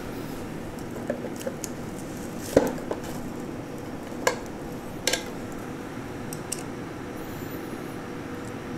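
Scattered sharp clicks and clacks of a metal screwdriver working furniture cam-lock fasteners in particle-board shelf panels, the loudest about two and a half seconds in, over a steady low hum.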